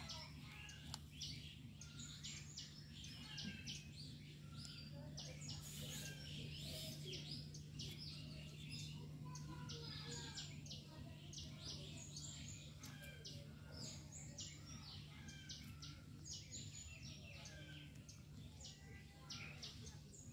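Many small birds chirping, short quick calls overlapping throughout, over a steady low hum.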